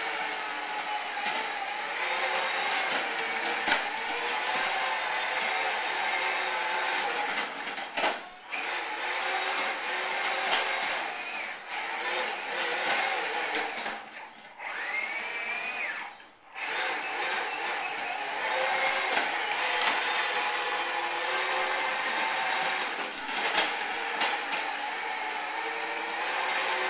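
Battery-powered ride-on toy quad driving on a tile floor: the steady whirr of its small electric motor and gearbox with the rumble of its plastic wheels, cutting out briefly a few times as it stops and starts again.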